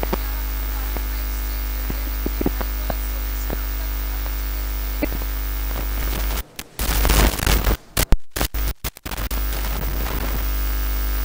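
Steady electrical mains hum in the recording, with small scattered clicks. About six and a half seconds in, a couple of seconds of loud crackling breaks in, with the sound cutting out and back several times.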